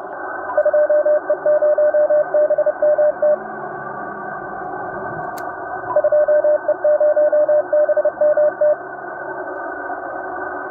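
Morse code beeps in a single steady tone, keyed in dots and dashes in two runs of about three seconds each, the second starting about six seconds in, over a steady hiss of radio static.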